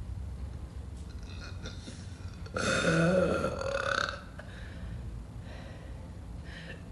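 A woman's single long, loud burp lasting about a second and a half, a little before the middle.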